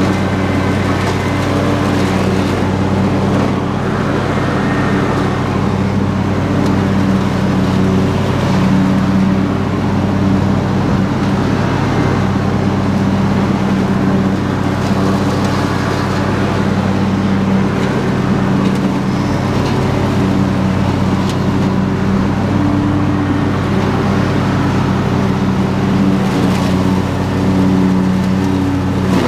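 Husqvarna YTH22V46 lawn tractor's V-twin engine running steadily under load, its mower deck cutting through tall weeds and brush, with a few brief crackles.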